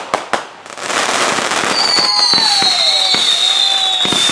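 Backyard fireworks going off: a few sharp cracks, then a steady hissing spray carrying several whistles that slowly fall in pitch, with scattered crackling pops.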